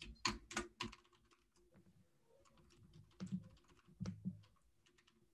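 Faint typing on a computer keyboard: a quick run of keystrokes in the first second, then scattered key presses with a couple of duller taps about three and four seconds in.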